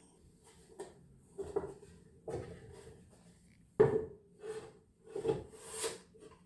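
Irregular scraping and knocking of objects being handled and rubbed against hard surfaces, with the sharpest knock about four seconds in.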